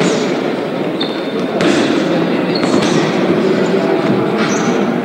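Steady din of many voices and movement filling a large sports hall, with a few short high squeaks.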